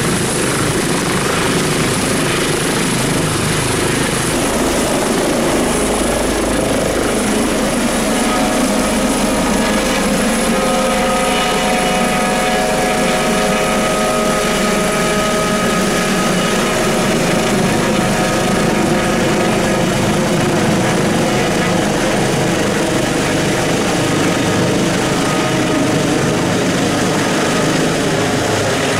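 Airbus H145 twin-turbine air ambulance helicopter lifting off and climbing away overhead: continuous rotor and turbine noise, with a steady whine coming through from about a third of the way in.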